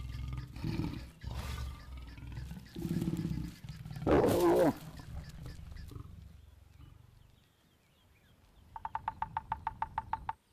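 Lions growling in low repeated rumbles, then one loud snarl about four seconds in, as a mating pair does. Near the end, a fast trill of short high notes, about nine a second.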